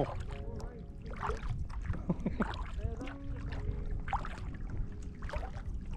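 Sea kayak on the move: paddle strokes dipping and dripping, with water lapping at the hull and a steady low wind rumble on the microphone.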